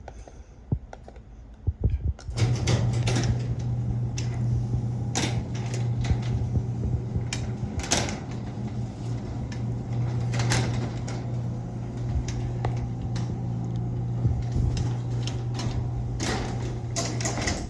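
Genie Pro Max chain-drive garage door opener lowering a sectional garage door. The motor hums steadily, with the chain and rollers clicking and rattling; it starts about two seconds in and stops near the end.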